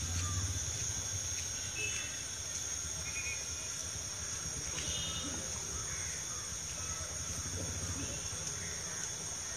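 Roadside ambience: a steady high-pitched insect chorus, with a few short bird calls and a low rumble that swells in the first second and again near the end.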